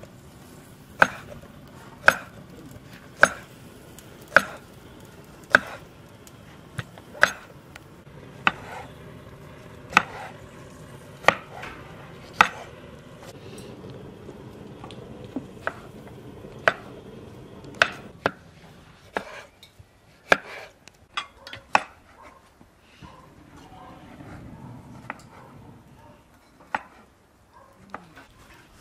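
Kitchen knife slicing a cucumber, each cut ending in a sharp knock of the blade on a wooden cutting board. The cuts come evenly about once a second for the first dozen seconds, then fall into a quicker, irregular run before thinning out near the end.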